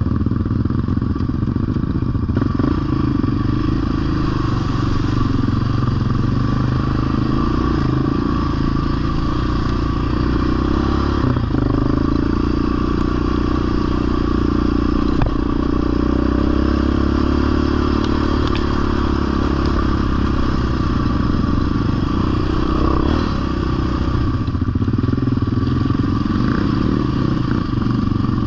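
ATV engine running steadily under throttle, heard from on board while riding a rough dirt trail, with a few knocks and rattles from the machine over bumps.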